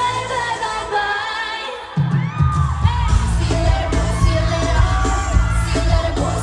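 K-pop song with female singing over backing music. A heavy bass beat comes in about two seconds in.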